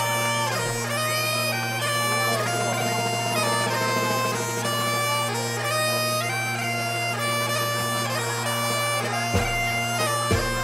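Bagpipe music: a melody on the chanter over a steady drone, with a few low thumps near the end.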